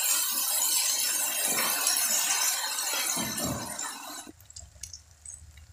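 Sliced fish cake sizzling as it cooks in a wok. The hiss stops abruptly about four seconds in.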